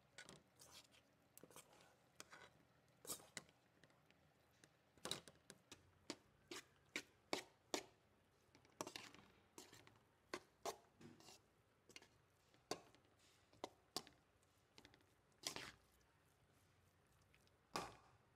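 Metal spoon scraping and knocking against a stainless steel vessel while cooked rice is stirred and mixed: irregular clicks and short scrapes, one or two a second.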